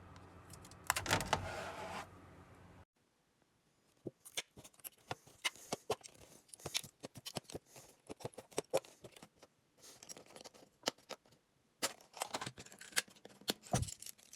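Irregular light clicks and rattles of a 3D-printed plastic articulated fidget toy being handled, its segments knocking together. They start about four seconds in, after a brief noisy rustle near the start.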